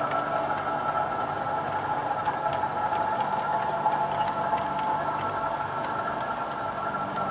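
O gauge model train running slowly past on the track: a steady mechanical hum of several held tones over a rolling noise, with a few faint, short high squeaks from about two seconds in.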